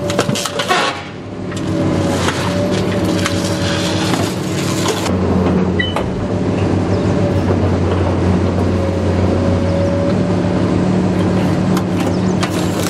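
Diesel engine and hydraulics of a car dismantling machine running steadily under load, with a hydraulic whine that comes and goes and the engine working harder about five seconds in. Scattered metal knocks and creaks from the car body being worked, mostly near the start and the end.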